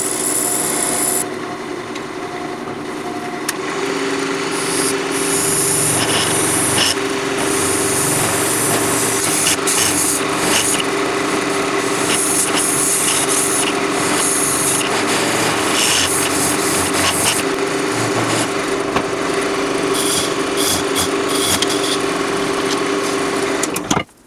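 Wood lathe running with a turning tool cutting into the end of a spinning apple wood blank: a steady scraping over the hum of the lathe motor as a small indent is cut. It stops sharply just before the end.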